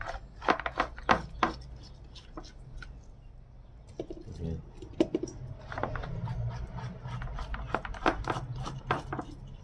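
Plastic spoon scraping raw wolf-herring flesh off the skin on a wooden cutting board: a string of short scrapes and taps in two bursts, with a quieter gap between them, over a low steady hum.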